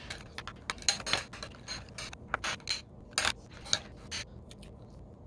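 Metal spoon clinking and scraping against a small ceramic bowl while stirring a thick mayonnaise garlic dip: irregular light clicks and scrapes, several a second.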